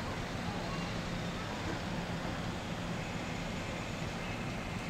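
Taiwan Railways EMU600-series electric multiple unit rolling slowly into the platform on arrival: a steady low hum with a few faint high squeals.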